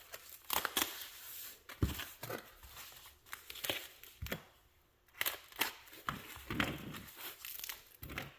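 Parcel wrapping being torn and crinkled by hand as packing tape and paper are pulled off, in a series of uneven crackling rips.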